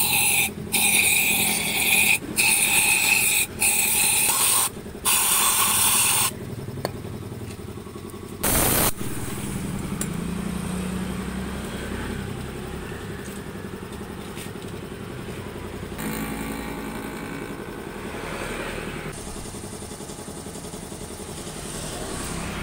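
Honda 125 cc motorcycle engine idling and blipped repeatedly. About six short, loud bursts come in the first six seconds and another near nine seconds, each carrying the hollow 'ngok' note the rider complains of when the throttle is opened. The engine then settles back to a steady idle.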